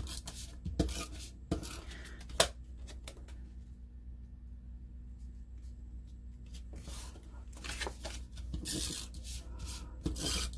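Cardstock being handled on a paper scrapbook page: black photo mats slid, tapped and pressed down by hand. A few sharp taps at first, a quiet spell of a few seconds, then longer rubbing and sliding of paper.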